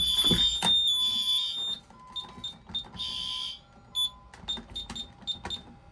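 Honeywell Vista 20P alarm system triggered by an entry door opening while armed in instant mode, with no entry delay: a steady high-pitched alarm tone stops about two seconds in. A string of short beeps at the same pitch follows, one of them longer.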